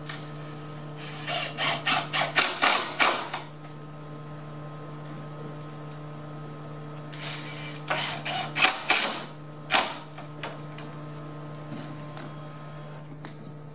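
Screw gun driving screws through a wooden head jamb into the jamb leg: two bursts of a few seconds each, the motor running in quick pulses, the second burst about six seconds after the first. A steady low hum runs underneath.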